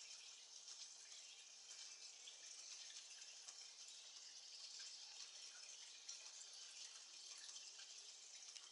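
Faint, steady hiss of water, with scattered soft ticks.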